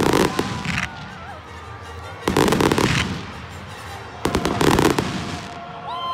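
Fireworks shells bursting in the sky in three volleys about two seconds apart, each a dense crackle of bangs.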